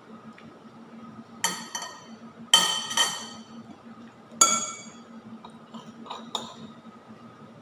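Metal spoon and fork clinking against a ceramic bowl: about six sharp ringing clinks, the loudest a couple of seconds and about four and a half seconds in.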